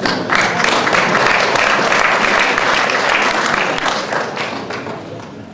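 Audience applauding, starting right away and dying down over the last second or so.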